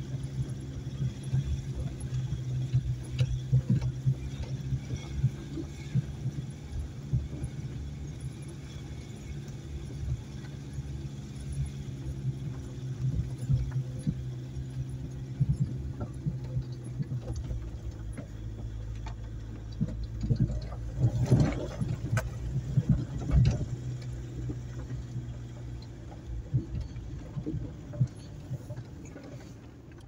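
Car engine running steadily, heard from inside the cabin while driving slowly along a rough dirt track, with scattered knocks and rattles over the bumps. There is a cluster of louder knocks about two-thirds of the way through.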